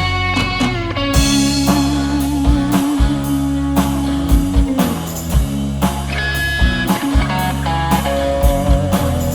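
Rock band playing an instrumental passage: electric guitar holding a long sustained note over bass and a steady drum kit beat.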